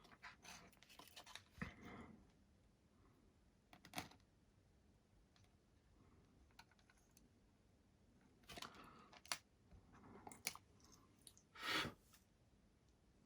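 Faint, scattered clicks and rustles of small hand tools and wires being handled at a workbench, with the loudest, a short scrape, near the end.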